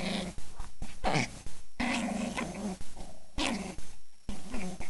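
A puppy and another dog growling at each other in rough play, in a series of short, loud bursts.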